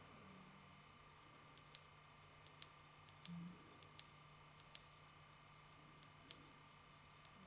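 Faint clicks of the FlexTail 165C's push button being pressed again and again, many in quick pairs: double clicks that switch the flood light on and step through its light outputs.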